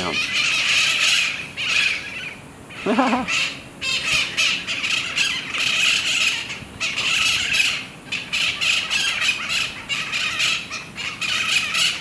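Flock of mitred parakeets squawking, call after call, with brief lulls about two and a half and eight seconds in.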